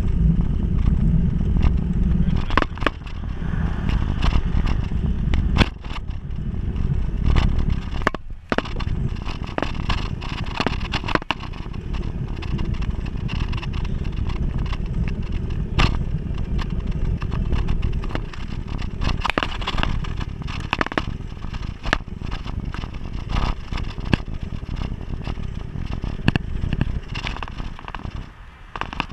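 Wind rushing over a bike-mounted action camera's microphone with road rumble, heavier in the first few seconds, and many sharp clicks and knocks as the mount jolts over the road surface.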